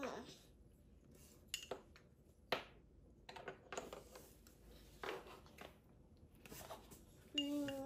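Faint, scattered clinks and taps of a metal spoon against a glass baby-food bowl and plate, about a dozen in all. A short hummed voice sound comes near the end.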